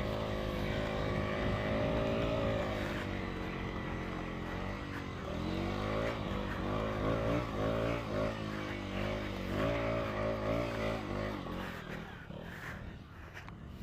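Motorcycle engine running, steady at first, then revved up and down repeatedly before fading out near the end.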